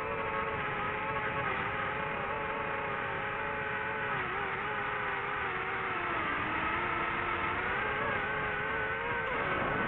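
DJI FPV quadcopter's motors and propellers whining in flight, the pitch wavering with throttle, sagging about six seconds in and climbing again, with a quick shift near the end.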